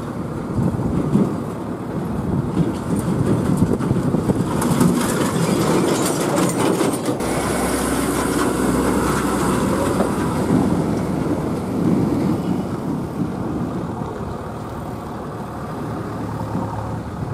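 Heavily loaded diesel lorries driving past on the road, engines running with tyre noise. A rattling clatter comes about five seconds in, followed by a rush of noise as a lorry passes close by.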